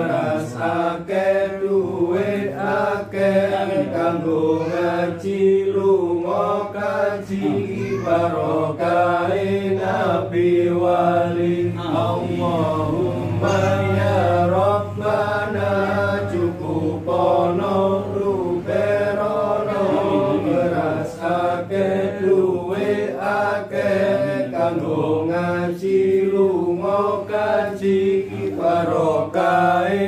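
Men chanting an Islamic prayer in a continuous, melodic recitation, the voices gliding and wavering over a steady low drone.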